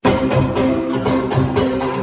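Live band playing at sound check, a steady beat with bass and guitar.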